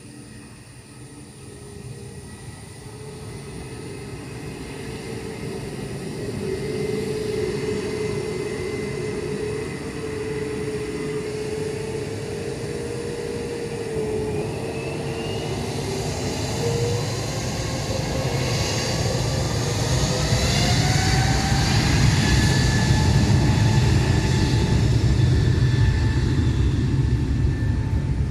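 Airbus A320neo's CFM LEAP-1A jet engines spooling up, with a whine that rises in pitch about halfway through, then a heavy rumble that keeps growing louder as the aircraft rolls for takeoff.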